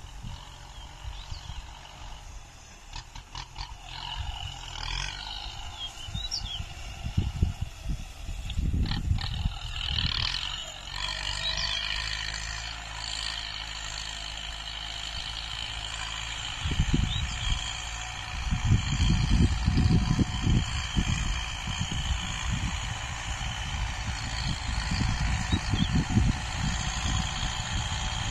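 Tractor engine running at a distance while working the field, drawing closer, with irregular gusts of wind buffeting the microphone that are loudest in the second half.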